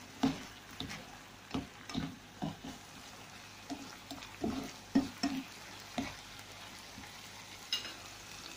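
A spatula stirring and tossing pancit noodles and vegetables in a frying pan: irregular scrapes and knocks against the pan, about ten in all, over a faint sizzle.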